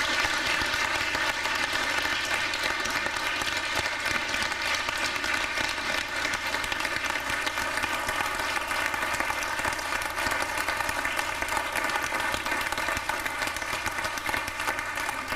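An audience applauding, with steady clapping from a roomful of people.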